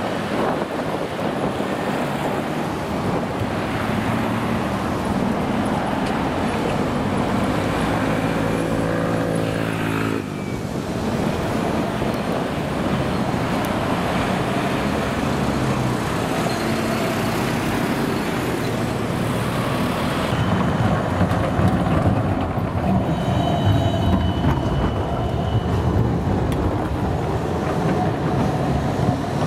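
City street noise with trams running on street track and road traffic passing. A low pitched hum from a vehicle rises over a few seconds and cuts off sharply about ten seconds in. Later a thin high squeal comes in as a Siemens Combino tram takes the curve close by near the end.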